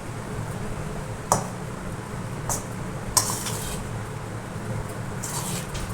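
A utensil clinking and scraping against a pan while dry ground spice powder is mixed and its lumps pressed out: three sharp clinks about one, two and a half and three seconds in, with short scraping strokes after the last and again near the end.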